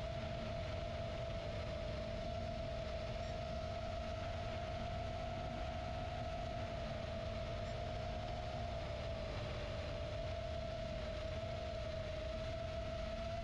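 FPV quadcopter's motors and propellers whining at a fairly steady pitch that wavers slightly, over a low rumble.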